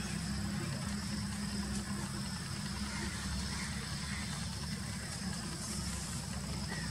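Steady low rumble of a distant Airbus A330's jet engines at the start of its takeoff, with faint steady high tones above it.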